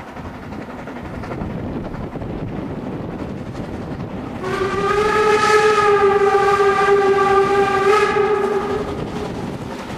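Steam locomotive 99 7236, a Harz narrow-gauge 2-10-2 tank engine, approaching with the rushing noise of its running. About four and a half seconds in it gives one long, steady blast on its steam whistle, lasting about four seconds, the loudest sound.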